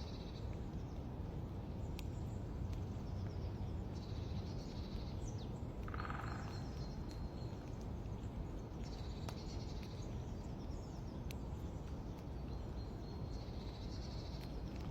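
Songbirds singing over a steady background hiss of outdoor noise. A short high-pitched phrase comes back about every five seconds, and there is a brief lower call about six seconds in.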